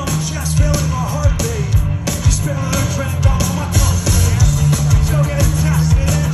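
Live pop-punk band playing loud through the stage PA: heavy bass and a fast, steady drum beat.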